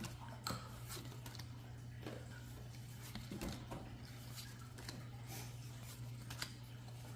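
Faint scattered clicks and short rustles from handling foil booster packs and trading cards, over a steady low hum.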